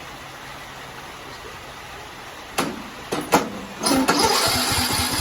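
A 17.5 hp Briggs & Stratton lawn mower engine being cranked over by its electric starter. It begins about four seconds in, after a few sharp clicks, with a steady pulsing as it turns. This is a start attempt on an engine that will barely run, which the owner suspects is starved of fuel because the carburetor bowl is not refilling.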